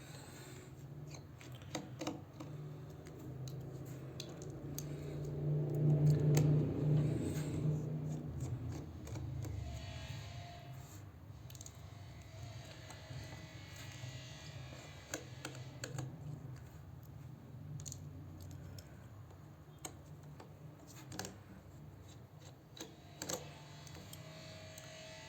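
Scattered small metallic clicks and taps of a precision screwdriver and tiny screws being worked out of a tablet's inner frame, with light handling of the parts. A low hum swells for a few seconds about six seconds in.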